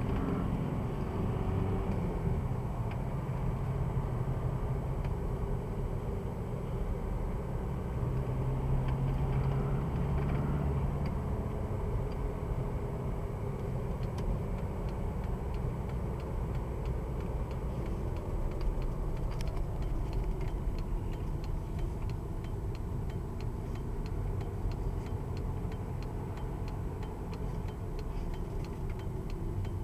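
2002 VW Jetta TDI being driven, its 1.9-litre four-cylinder turbodiesel running with road rumble, the engine note rising and falling in the first half. In the second half a run of short, repeated ticks sounds over the running noise.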